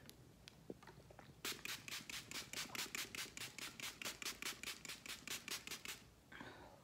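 Pump bottle of e.l.f. Mist & Set makeup setting spray spritzed onto the face in a long run of quick misting puffs, about six a second. The puffs start about a second and a half in and stop about a second before the end.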